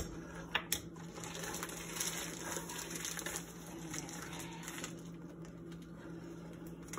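Wooden spoon stirring a thin, buttery sauce in a stainless steel pot, the liquid swishing quietly, with a sharp click in the first second.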